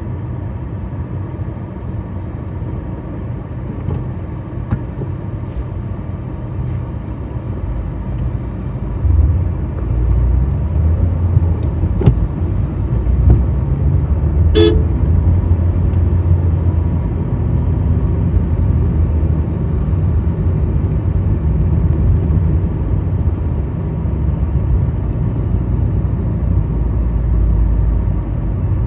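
Car driving on a road: a steady low engine and road rumble that grows louder about nine seconds in, with one short car horn toot about halfway through.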